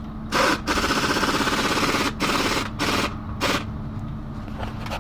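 Compressed-air blowgun blowing out a truck's air filter element: one long hissing blast of about two seconds, then several short blasts, over a steady low hum.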